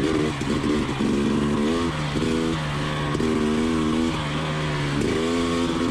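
A 2020 KTM 300 XC TPI two-stroke single-cylinder engine running through a Pro Circuit Type 296 spark-arrester silencer, ridden on a trail. Its pitch rises and falls several times between short steady stretches as the throttle is opened and closed.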